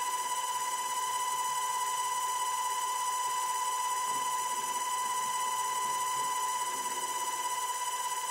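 Steady high-pitched whine from the motor of a CNC rotary axis used as a micro lathe spindle, spinning an aluminium rod at speed while it is spot-drilled. The pitch holds one even tone throughout.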